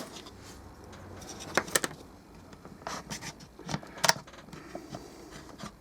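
Scattered sharp plastic clicks and light scraping as a tool pries apart the seam of a Creative Pebble speaker's plastic housing, working it round to pop the two halves apart.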